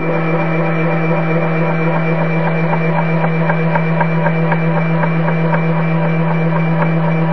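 Spindle of a small home-built CNC router running steadily with a hum while its carbide end mill cuts aluminium, with a regular ticking a few times a second.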